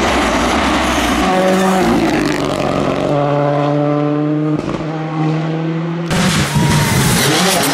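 Ford Fiesta rally car's engine held at high revs as it drives past, its pitch stepping with gear changes and dropping off about four and a half seconds in. About six seconds in the sound changes abruptly to a second rally car's engine with loud tyre noise.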